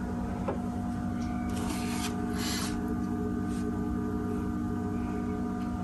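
Steady electrical hum made of several fixed tones, with a couple of brief hisses in the middle.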